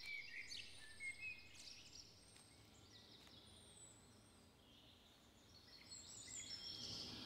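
Faint woodland birdsong: several birds giving short whistled phrases and trills, busiest in the first second or so and again near the end, over a soft steady outdoor hush.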